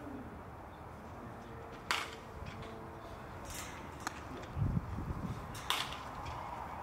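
Baseball bat striking pitched balls during batting practice: sharp cracks of contact, the two loudest about two seconds in and near the end, with fainter ticks between, over steady open-air background noise.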